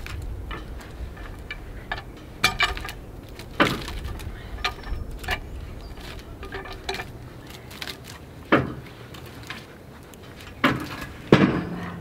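Scattered sharp metal clanks and knocks of a cant hook and a log against the steel bed of a Woodmizer LX150 sawmill as the log is turned and positioned, about half a dozen strikes spaced irregularly, two of the loudest close together near the end.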